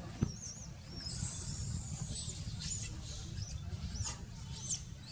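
Baby macaque squeaking: a string of short, high-pitched squeaks, with one longer squeal from about a second in that falls away at its end.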